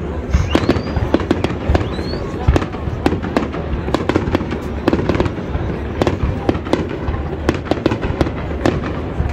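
Fireworks display: a dense, continuous run of bangs and crackling bursts over a steady low rumble, with two short rising whistles in the first two seconds.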